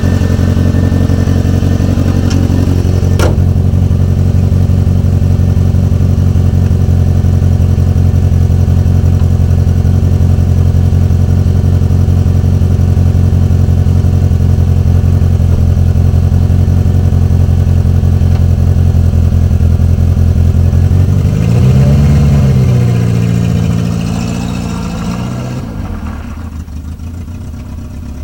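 Renault 19's engine idling steadily after an engine repair. About 21 s in it revs up briefly and settles back, then the sound grows quieter over the last few seconds.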